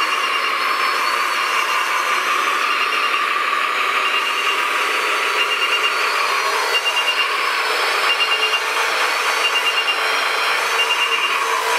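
Radio-controlled scale model LiuGong wheel loader working: a steady high whir of small motors, with short electronic beeps repeating about once a second.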